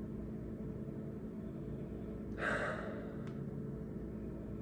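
One long sniff through the nose into a glass of beer, about half a second, a little past halfway; otherwise only a low steady room hum.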